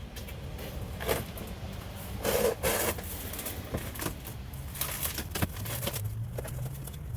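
Cardboard packaging and loose parts being handled, rustling and scraping in a few short bursts, the loudest about two and a half seconds in, with scattered clicks over a steady low rumble.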